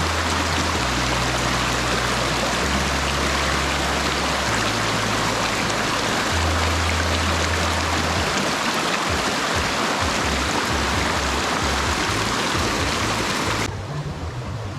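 Rushing water of a waterfall: a loud, steady, dense hiss that cuts off suddenly near the end. Low sustained tones that shift pitch every second or two run beneath it.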